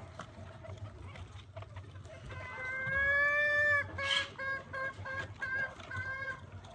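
Chickens calling: about two seconds in, one long drawn-out call rising slightly in pitch, then a brief harsh sound, then a quick run of about seven short clucks.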